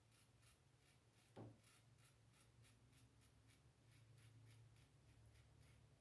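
Very faint scraping of a safety razor's blade through lathered stubble in short, evenly repeated strokes, about four or five a second, with one soft knock about a second and a half in.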